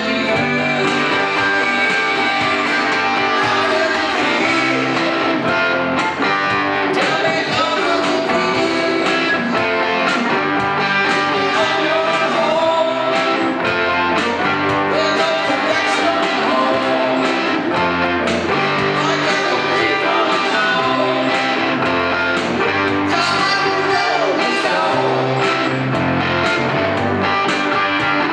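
Rock band playing live: two electric guitars strumming and picking over an electronic keyboard, with a steady beat.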